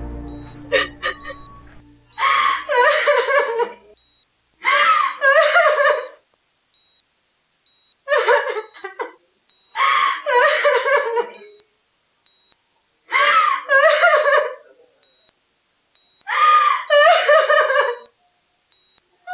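A woman crying in six sobbing bouts of a second or two each, separated by pauses, while a hospital patient monitor gives short high beeps. Music fades out at the start.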